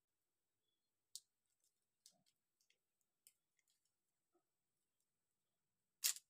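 Near silence broken by a few faint clicks, then one sharper, louder click near the end.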